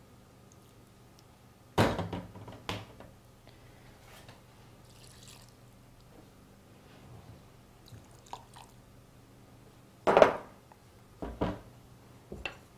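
Sharp clinks and knocks of a metal teaspoon and small kitchen containers against a glass measuring jug and the worktop as marinade ingredients are spooned and tipped in, with faint dribbling of liquid. They come in two clusters: a couple of knocks about two seconds in, then three more from about ten seconds in to near the end.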